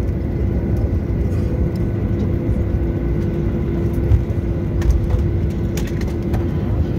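Cabin noise of a jet airliner rolling out on the runway after landing, with its ground spoilers raised: a steady low rumble from the wheels and engines. A steady hum runs under it and drops out shortly before the end.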